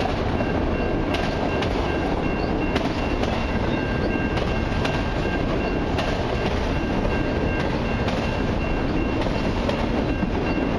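Freight train of autorack cars rolling past at close range: a steady rumble of steel wheels on rail, with scattered clicks as the wheels cross rail joints and a faint steady high-pitched tone over it.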